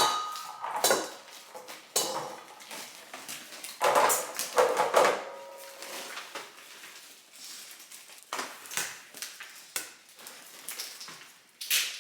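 Kitchenware being handled and set down: a string of knocks and clinks of dishes and utensils. A few of them ring briefly, and the busiest clatter comes at the start and again about four to five seconds in.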